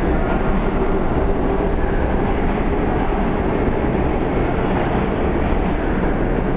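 R32 subway train approaching through the tunnel, a steady rumble of wheels on rails.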